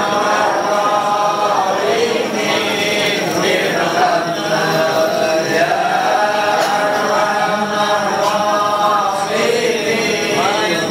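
A crowd of pilgrims chanting prayers together in unison, the voices held in long, drawn-out phrases that slowly rise and fall.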